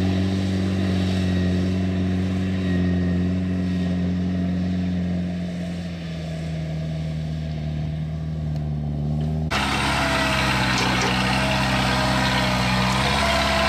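Diesel engine of a small tracked dump cart running steadily under load, its pitch sinking slightly as it pulls away. About two-thirds of the way in it cuts abruptly to a closer, louder and rougher cart engine.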